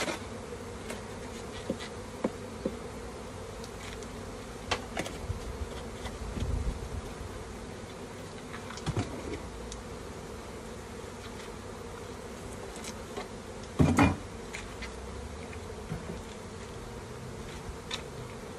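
Honeybees buzzing steadily in a continuous hum at an opened hive, with scattered short clicks and knocks, one louder knock about fourteen seconds in.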